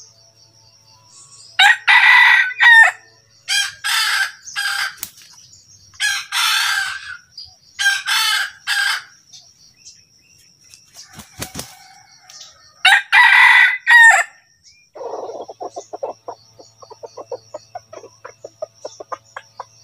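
Red junglefowl rooster crowing five times, then a rapid run of short clucks in the last few seconds. A faint steady high-pitched insect-like whine runs underneath.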